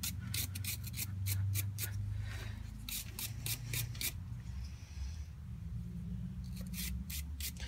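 Small hand wire brush scrubbing dirt off a small brake part in quick scraping strokes, several a second, in bursts with a pause of about two seconds in the middle.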